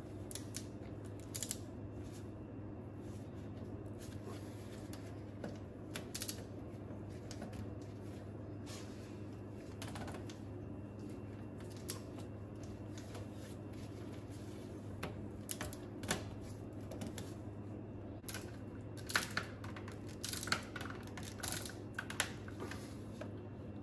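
Scattered small clicks, taps and rattles of hands and a tool working on the metal gimbal housing while a rubber shift-cable bellows is seated, over a steady low hum. The clicks come closer together near the end.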